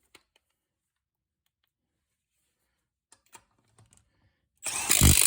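A few faint clicks of handling, then near the end two short loud bursts from a cordless Milwaukee 3/8-inch impact wrench hammering on a nut through a 19 mm impact socket.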